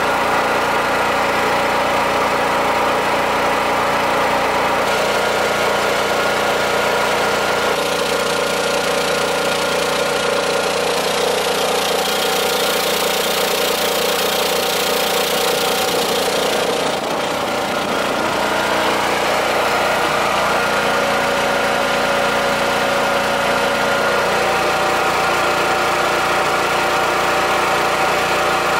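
Honda EU7000is fuel-injected single-cylinder inverter generator running steadily while it powers a house. Its engine note shifts slightly in speed a few times, and a louder hiss rises for a few seconds in the middle.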